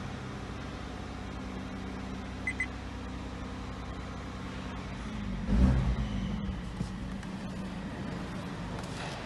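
A BMW car's engine running steadily with a low hum, swelling louder about five and a half seconds in. There are two short high beeps a little over two seconds in.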